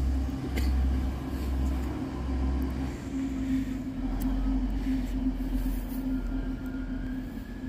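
Red DB regional multiple-unit train passing at moderate speed, giving a steady low drone and running rumble, with faint higher tones coming in near the end.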